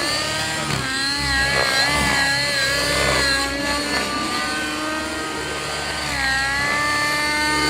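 Radio-controlled helicopter flying 3D aerobatics: its motor and rotor make a continuous pitched sound that rises and falls repeatedly as it manoeuvres.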